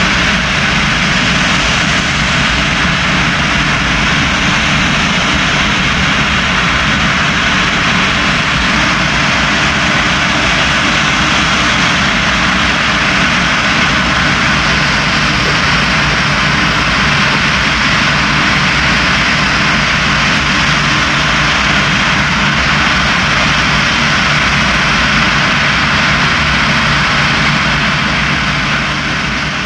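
Steady, loud noise of a jet airliner during de-icing: an even hiss with a low hum underneath, fading near the end.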